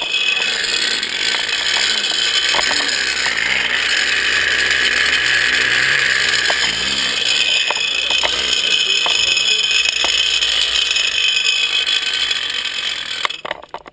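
Zip line trolley's pulley wheels running fast along the steel cable: a loud, steady whir with faint scattered clicks. It stops abruptly near the end as the rider reaches the landing.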